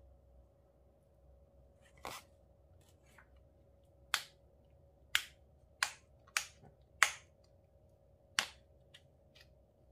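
Sharp plastic snaps and clicks from a clear multi-compartment glitter case being handled, its small lids clicking: about seven snaps, unevenly spaced, most of them in the second half.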